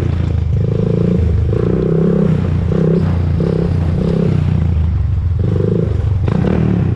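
A Honda TRX400EX ATV's single-cylinder four-stroke engine is running on a ride. The engine note swells and drops repeatedly as the throttle is opened and closed.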